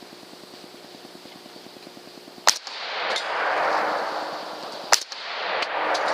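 Two gunshots about two and a half seconds apart, each a sharp crack followed by a swell of noise.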